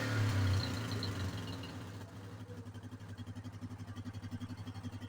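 Yamaha Grizzly 660 ATV's single-cylinder engine coming down off a throttle blip, its revs falling over the first second or two and then settling into a steady, evenly pulsing idle. The engine hesitates and stutters when the throttle is gunned, which the owner thinks could be timing or ignition trouble.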